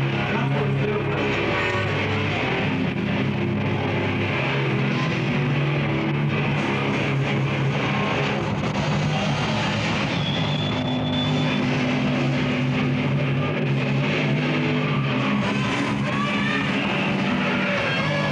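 Death metal band playing live: a steady, dense wall of distorted electric guitar music.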